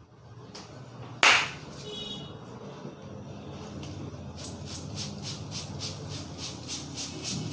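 Hands striking during a head massage: one loud sharp smack about a second in, then quick even tapping at about three to four strikes a second.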